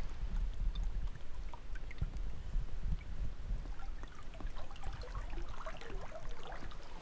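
Lake water lapping and trickling, with small drips and gurgles that grow busier in the last couple of seconds, over a steady low rumble.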